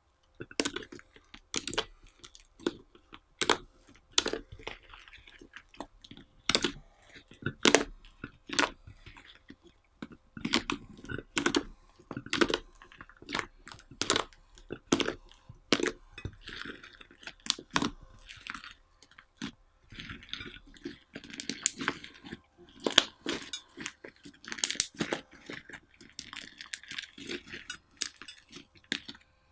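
Slime being squished and kneaded by hand, making irregular sharp wet pops and clicks, roughly one or two a second, with softer squelching between them.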